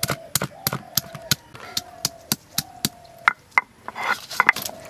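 Stone pestle pounding ginger and garlic on a flat stone grinding slab (shil-nora): sharp stone-on-stone knocks, about three a second, then a rough grinding scrape near the end as the stone is worked over the paste.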